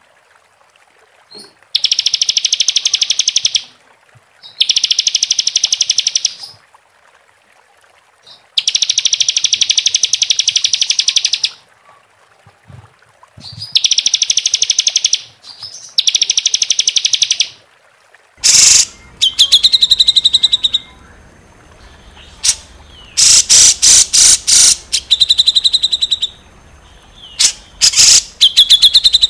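Songbird song of the harsh, rapid-fire kind that bird keepers call 'tembakan' (shots), played as training material for caged songbirds. It comes as five loud, fast rattling trills of two to three seconds each with short pauses between. About two-thirds through, a different recording takes over, with a background hiss, sharp clicks and shorter calls.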